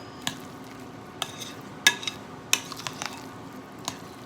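A spoon stirring in a mixing bowl, knocking and clinking against the bowl at irregular moments; the loudest clink, about two seconds in, rings briefly.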